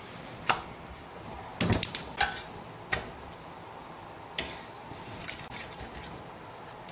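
A metal spoon clinking and tapping against a glass bowl of melted ghee and a stainless steel frying pan: a few sharp clinks, then a run of lighter ticks near the end as ghee is spooned over a chapati in the pan.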